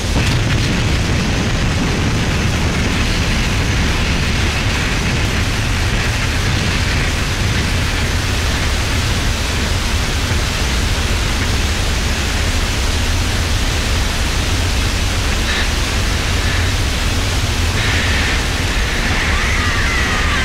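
Steady, loud rushing noise with a heavy low rumble under it. Near the end, faint wavering high tones come in over it.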